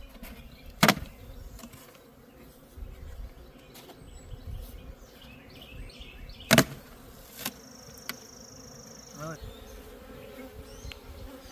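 Honeybees buzzing steadily around an opened hive, with two sharp knocks, one about a second in and a louder one about six and a half seconds in.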